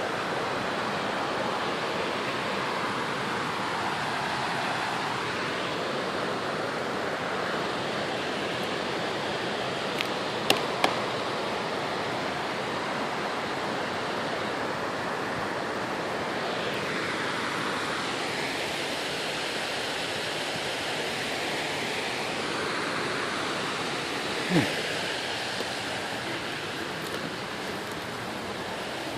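Wind blowing on the camera's microphone: a steady rushing noise with slow swells, and two brief clicks about ten seconds in and a short thump near the end.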